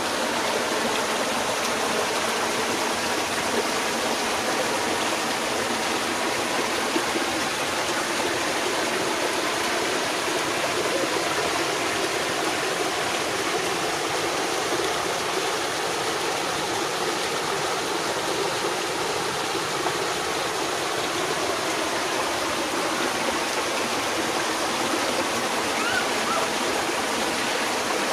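Water of a small waterfall rushing steadily over rocks.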